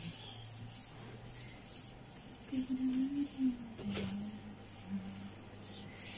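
Rhythmic rubbing strokes by hand at a kitchen counter, about two to three a second, with a single sharp click about four seconds in.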